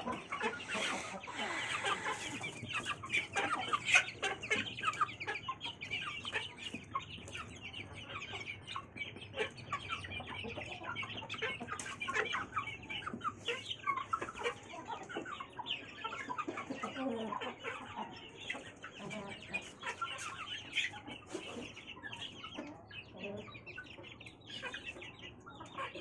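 Chickens clucking continuously as they feed, many short calls overlapping one another.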